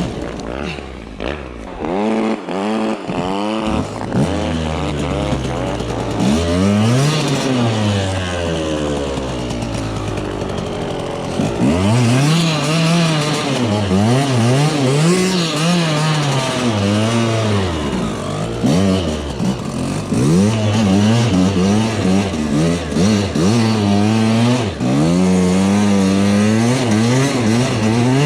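Off-road dirt bike engines being ridden, revving up and dropping back again and again, the pitch climbing and falling every few seconds.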